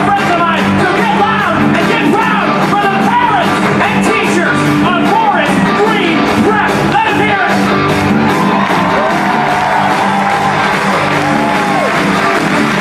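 Rock music with a band playing and many voices singing and shouting over it.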